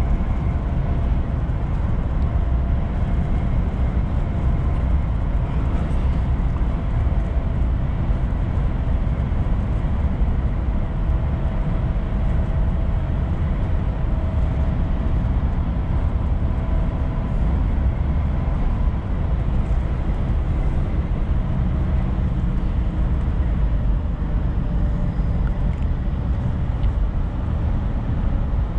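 Volvo FM4 truck on the move: a steady low engine and road rumble with a faint, even whine above it.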